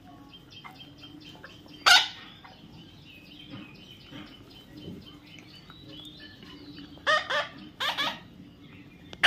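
Parrot calling: one sharp loud call about two seconds in, then a short run of loud calls near the end, over faint repeated high chirping in the background.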